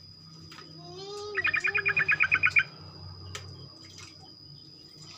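Yellow-vented bulbul (trucukan) singing. A few short gliding notes lead into a fast chattering trill of about a dozen notes lasting just over a second, starting about a second and a half in.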